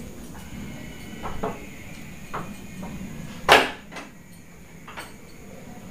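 A few soft footsteps on a tiled floor, then a sharp wooden clunk about three and a half seconds in as a wooden door's handle and latch are worked, followed by a couple of faint knocks.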